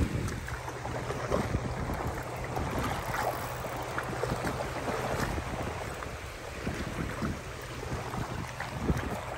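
Wind buffeting the microphone, with small wind-driven waves lapping and washing over the shallow tidal shore.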